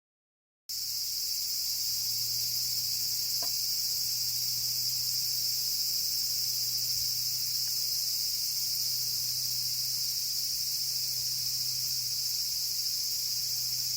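Steady chorus of insects trilling continuously at a high pitch, starting after a moment of silence. A low steady hum sits beneath it, and there is one faint click about three and a half seconds in.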